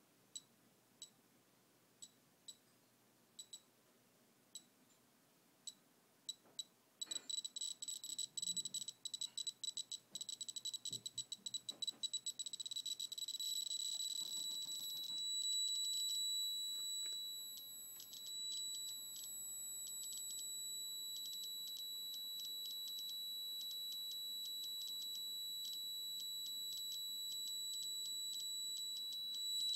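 Homemade Geiger counter with a 7317 pancake tube clicking. It starts with a few scattered background clicks. From about seven seconds in, the click rate climbs fast as a radioactive sample is held to the tube, until the clicks blur into a steady high tone at a count rate near 16,800 counts per minute.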